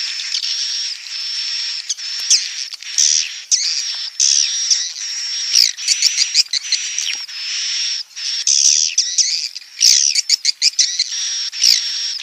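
Swiftlet chicks calling in the nest: a dense, unbroken high-pitched chatter of many overlapping chirps and short whistles, with sharp clicks scattered throughout.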